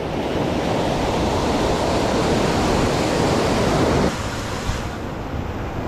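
Wind rushing over the microphone with water noise, a steady rush that drops sharply about four seconds in.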